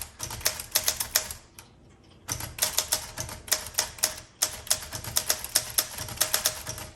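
Keystrokes on a 1968 Olympia SM9 portable manual typewriter: quick, even clacks of the typebars striking the platen, several a second. There is a short break in the typing about a second and a half in, then it picks up again.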